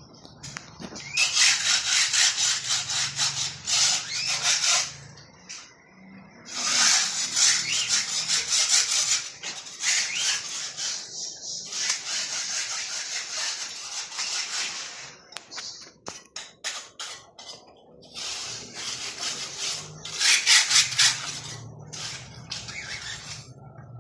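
Repeated spells of rasping, scraping strokes on wood, each lasting a few seconds, with a quick run of sharp clicks around the middle.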